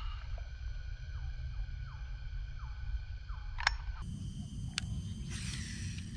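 Baitcasting reel's spool spinning as line pays out on a cast, a brief hiss in the last second. Before it, a bird repeats a short falling call about twice a second over a steady high drone, and a single sharp click about three and a half seconds in is the loudest sound.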